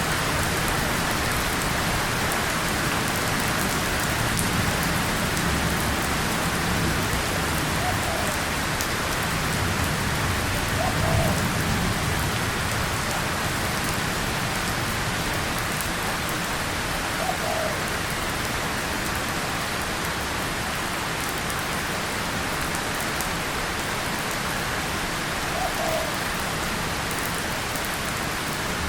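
Steady rain falling on a tin surface and leaves, a dense even hiss, with a low rumble building around ten seconds in and four faint short chirps scattered through it.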